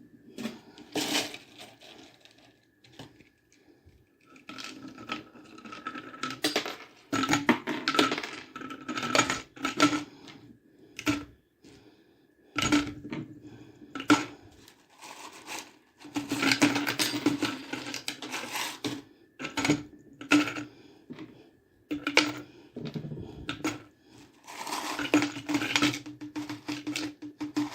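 Irregular bursts of clinking and clattering of hard objects, in clusters separated by short pauses, over a steady low hum.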